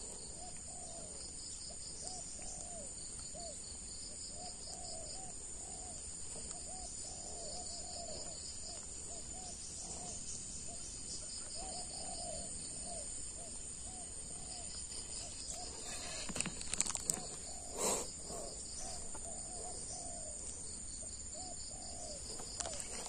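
Outdoor wildlife ambience: a steady high insect drone with a fast pulsing chirp, and an animal's short low calls repeating about twice a second. A few sharp knocks sound about three quarters of the way through.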